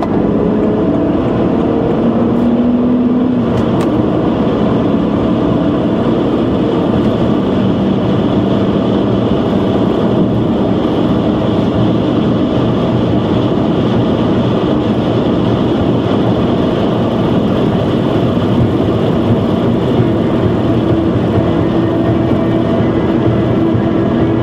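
Cabin noise of a BMW 130i driving fast: the 3.0-litre straight-six engine pulling under load, with steady road and wind noise. The engine note climbs in pitch over the first few seconds, then holds steady.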